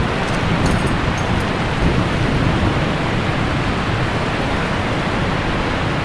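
Wind rushing steadily over the camera's microphone on an exposed mountain summit, with an uneven low rumble of buffeting.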